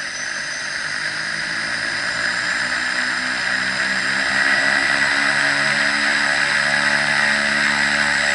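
Small plane's engine running steadily on the ground, growing gradually louder as the aircraft taxis nearer, with a thin high whine over a steady hum.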